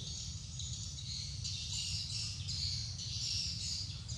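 Ambient chorus of high-pitched chirping from birds and insects, rising and falling in patches, over a low, steady rumble.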